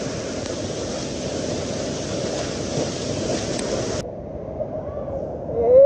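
Waterfall rushing over rocks, a steady hiss of white water. About four seconds in it cuts off abruptly to a quieter, duller rush of river water.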